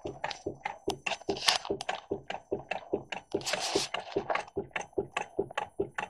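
Homemade Stirling engine running on a single tealight candle, clicking steadily at about five clicks a second as its flywheel spins. Two brief rustles come in between the clicks.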